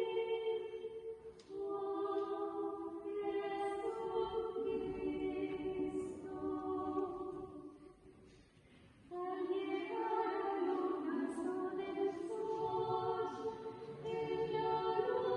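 Background music: a choir singing slow, held chords, with a short pause about eight seconds in.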